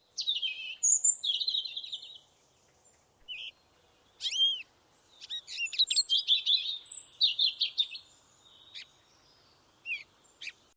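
Songbirds singing: bursts of high chirps and whistled phrases with short pauses between them.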